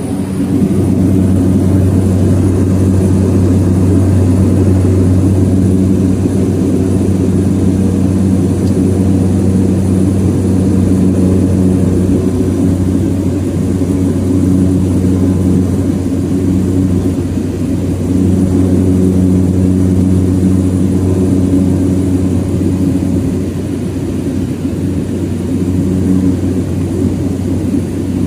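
Cessna 208B Grand Caravan's single Pratt & Whitney PT6A turboprop and propeller running at high power, heard from inside the cabin as a loud, steady low drone. The level steps up about half a second in, as power comes up for the takeoff.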